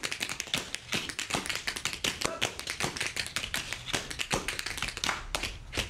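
Tap dancers' boots striking the stage floor in fast, dense runs of sharp taps, several a second, with no music.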